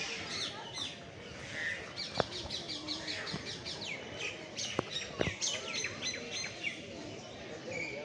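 Many small birds chirping at once, short high chirps that slide downward, coming as a rapid run in the middle, with a few sharp clicks.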